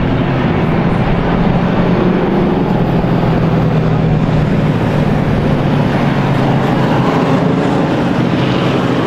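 Stock race cars' engines running at speed as the field laps the track, a loud, steady blend of engine noise.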